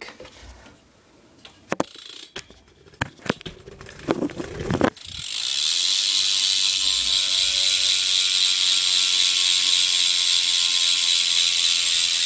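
BMX rear cassette hub (Mission React hub with Odyssey driver) freewheeling as the rear wheel is spun, its pawls clicking in a fast, continuous, nice and loud ratchet buzz from about five seconds in. Before that, a few sharp clicks and knocks.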